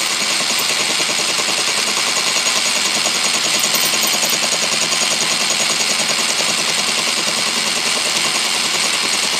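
Atlas lathe running with a single-point cutter spinning in the chuck, taking an interrupted cut across a metal plate: a steady machine drone with a fast, even rhythm of the cutter striking the work.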